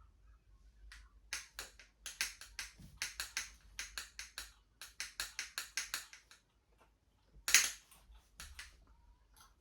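Runs of sharp, quick clicks, several a second, from a small hand-held item worked close to the microphone, with one louder click about seven and a half seconds in.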